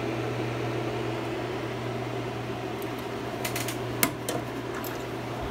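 Small electric fan on a DIY candle convection heater running with a steady hum, blowing warm air off the heater. A few light clicks sound between about three and a half and five seconds in, the sharpest around four seconds.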